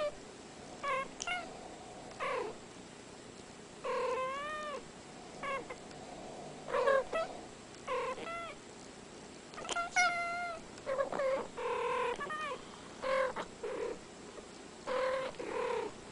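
Domestic cats making short chirping meows: a quick run of brief calls with pauses between them, some bending up and down in pitch.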